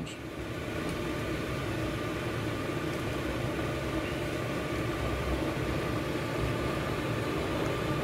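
Steady rushing hum of a homemade hybrid wood and waste-oil stove burning hot, its stack near 650–700°F, with its air blower running.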